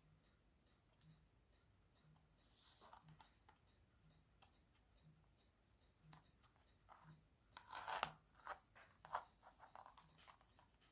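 Near silence broken by faint clicks, scratches and scrapes of small hand tools being handled over a circuit board, with the loudest cluster about eight seconds in. A faint, even tick repeats a little under once a second beneath it.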